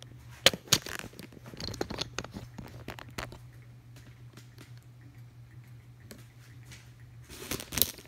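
Kenmore ceiling fan running with a steady low motor hum. Irregular sharp clicks and crackly rustles sound over it, loudest in the first couple of seconds and again near the end.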